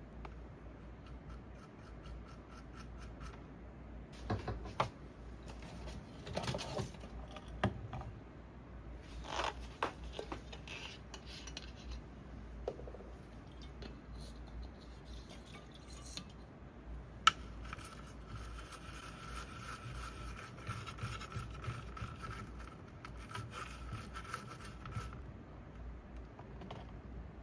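Workbench handling sounds from reassembling a small electronic device: scattered clicks, scrapes and rubbing of parts. About two-thirds of the way in, a sharp click is followed by a steady hiss with a faint high tone, lasting about eight seconds.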